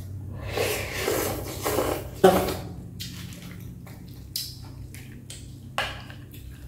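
Eating noodle soup: wet mouth sounds of taking in and chewing a mouthful of noodles, then a sharp clink of a utensil against the glass soup bowl a little after two seconds, followed by lighter clicks as chopsticks and a metal utensil pick through the bowl.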